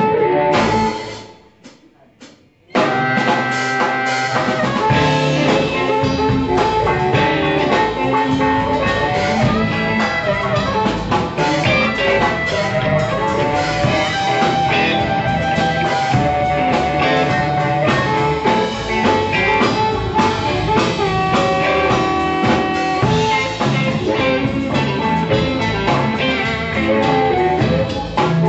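Live blues band playing, with electric guitar and drum kit to the fore. Just after the start the band stops dead for about two seconds, with only a few hits in the gap, then comes back in together.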